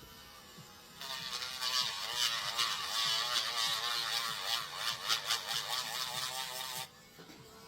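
Small handheld rotary tool grinding the rivet heads off a die-cast toy car body, running from about a second in until near the end, its pitch wavering as it bites into the metal.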